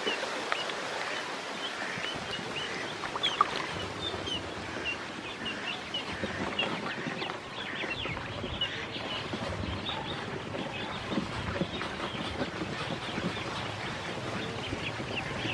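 A group of ducklings peeping: many short, high peeps scattered all through, over a steady noisy hiss.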